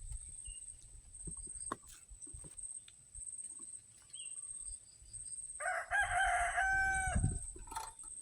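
A rooster crowing once, about five and a half seconds in, a call of a second and a half that ends on a held note.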